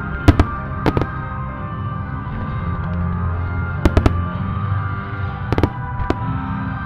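Aerial firework shells from a starmine barrage bursting, about ten sharp bangs in clusters of two or three. They sound over a show's music soundtrack of sustained tones.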